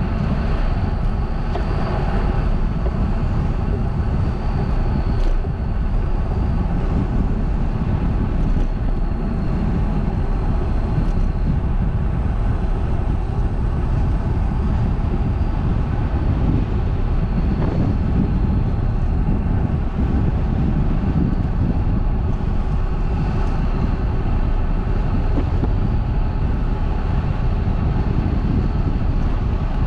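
Steady wind and road noise from a bicycle-mounted camera while riding: a constant low rumble of wind on the microphone, with faint steady tones above it.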